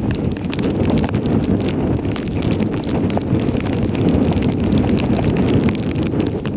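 Wind buffeting the microphone: a steady low rumble, with scattered faint clicks throughout.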